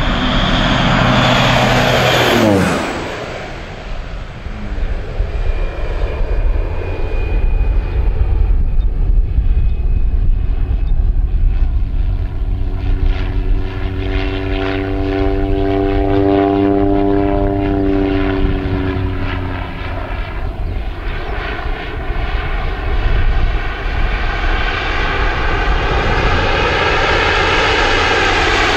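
Air Tractor AT-402 agricultural plane's PT6A turboprop engine and propeller in low flyovers: loud at first, its pitch falling sharply as it passes about two and a half seconds in, then a quieter drone that swells and bends in pitch again as the plane comes back round.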